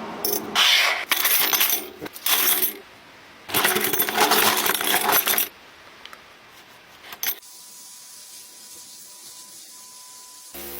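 Small metal pieces clinking and rattling against metal in several bursts over the first five or so seconds, then a short one about seven seconds in. After that it goes quieter, with a faint steady thin tone.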